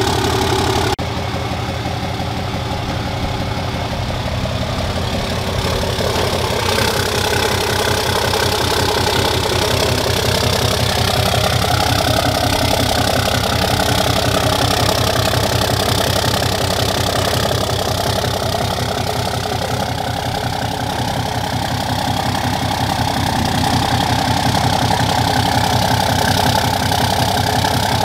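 Ram 2500's 6.7 L Cummins inline-six turbo-diesel, DPF/EGR-deleted, idling through a 5-inch turbo-back exhaust: a steady, fast-pulsing diesel exhaust note. The sound changes abruptly about a second in and again near seven seconds, where separate recordings are cut together.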